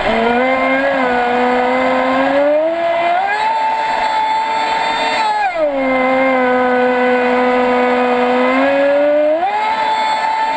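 Traxxas Spartan RC speedboat's brushless electric motor whining as the throttle is worked. The pitch starts low, climbs to a high steady whine about three seconds in, drops back near the middle, and climbs again near the end.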